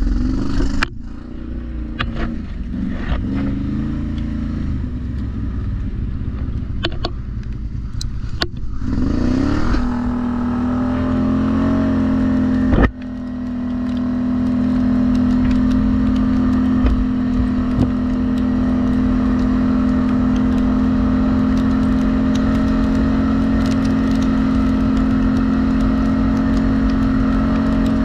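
Vehicle engine varying in speed, then revving up about nine seconds in and holding a steady drone at constant speed, with a few clicks early on and one sharp knock partway through.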